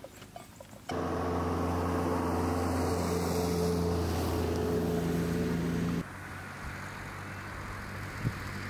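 A motor engine running steadily: a low hum with several held tones over a rushing haze, which starts abruptly about a second in and cuts off abruptly about six seconds in, leaving a fainter wind-like hiss.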